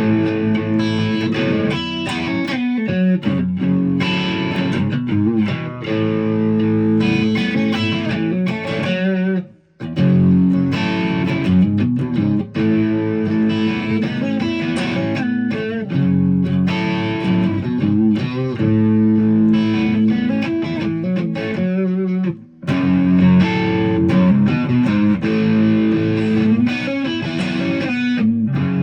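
Ibanez RG1070PBZ electric guitar played through an amplifier, a run of ringing notes and chords, breaking off briefly twice, about ten seconds in and again past the twenty-second mark.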